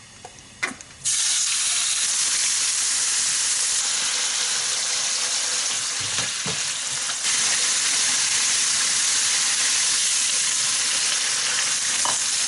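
Sliced pork belly sizzling in hot oil in a nonstick frying pan, turned with a spatula. The sizzle starts suddenly about a second in and grows a little louder about seven seconds in.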